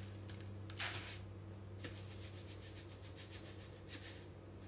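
Graham cracker crumbs poured from a canister into a measuring cup: faint soft rustling and pattering, the clearest about a second in, over a steady low hum.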